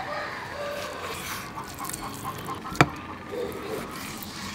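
A large kitchen knife slicing raw beef on a wooden chopping block, with one sharp knock of the blade on the wood about three seconds in.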